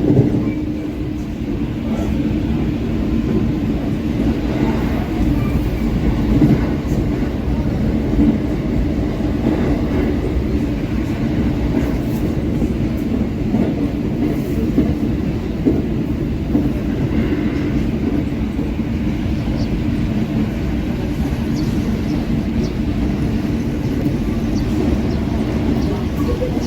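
Passenger train running, heard from inside the carriage: a steady rumble of wheels on rails with a low hum.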